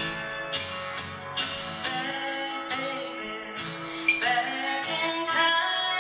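Two acoustic guitars playing a country-folk passage, with sharp plucked notes ringing over sustained chords.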